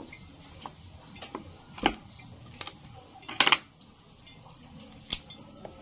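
Scattered small clicks and knocks of garlic cloves being peeled and handled by hand on a wooden cutting board, irregular and a second or so apart, with a louder short clatter about three and a half seconds in.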